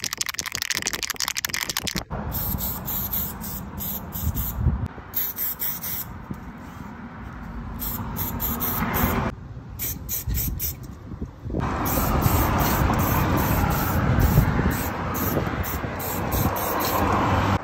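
Aerosol spray paint cans hissing in many short bursts. A can is rattled with rapid clicks for about the first two seconds, and there is a pause in the spraying a little past halfway.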